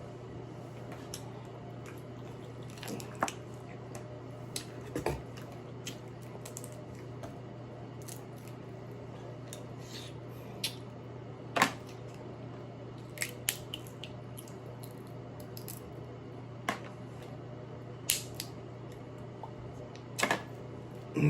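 Crab shell being cracked and pulled apart by hand, giving irregular sharp cracks and clicks with pauses between them, over a steady low hum.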